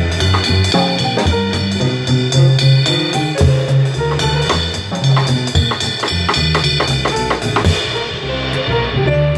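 Drum kit played with sticks, snare, bass drum and cymbal strokes, along with a jazz backing track that carries a moving bass line and chords.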